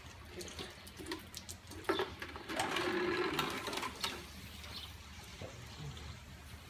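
Liquid poured into a container, with a louder stretch of pouring about two and a half seconds in that lasts about a second and a half, among a few light knocks and clicks. This is water going into a sodium hydroxide deck stripper to dilute it.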